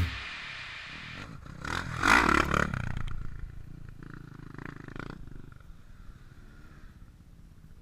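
Dirt bike engine revving, rising and falling in pitch, loudest about two seconds in, then fading to a faint distant drone.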